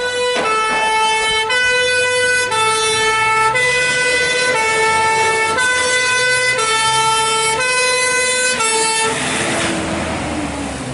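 French fire engine's two-tone siren sounding, alternating between a higher and a lower note about once a second. A little after halfway through the siren cuts off and the truck's engine rushes past close by, its pitch falling.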